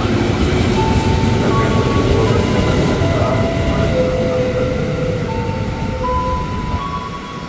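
Electric commuter train (KRL EMU) pulling out along the platform, its running rumble slowly fading as it moves away. Over it comes a series of steady held tones that step from pitch to pitch, like a short tune.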